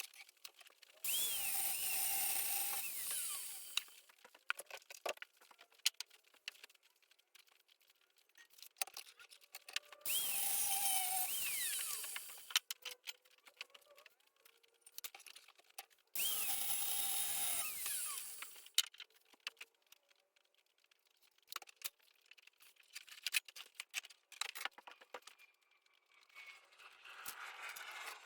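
A handheld power tool working steel rod for concrete anchor rods, run in three bursts of about three seconds each. Metal clicks and knocks from handling the steel fall between the bursts.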